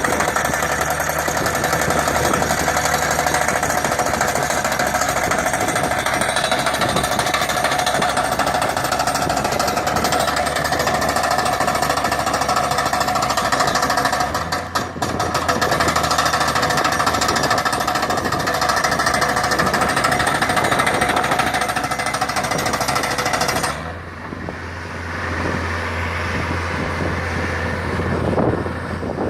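A loud, continuous mechanical rattle, like a heavy power tool, with a brief dip about halfway through. It stops suddenly near the end, leaving a low steady hum.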